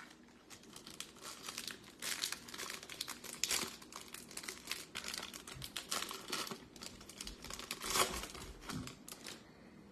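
A foil trading-card pack wrapper being crinkled and torn open by hand, rustling and crackling irregularly throughout, loudest near the end as the wrapper is peeled apart.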